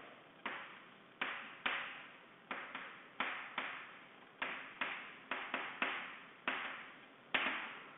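Chalk writing on a chalkboard: a string of short, sharp taps and scratches, irregular, about two a second.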